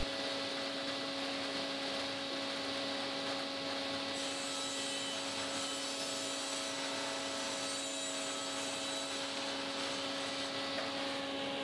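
SawStop table saw running steadily with its blade spinning free and not cutting: a constant hum with a steady higher whine over a rushing hiss of air, as from the saw and its dust extraction.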